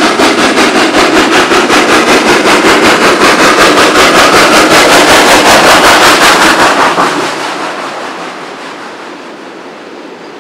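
Borsig Mikado steam locomotive 06 018 working hard with a freight train: fast, even exhaust beats from the chimney, about five a second. The beats cut off about seven seconds in as the engine passes, leaving the lower rolling rumble of the freight wagons.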